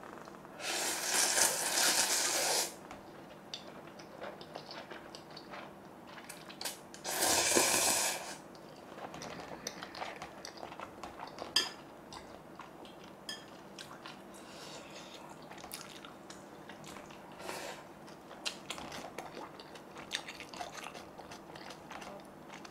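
Close-miked eating sounds: two loud slurps of instant ramen noodles, one about two seconds long near the start and a shorter one about seven seconds in, with quieter chewing and crunching clicks between them.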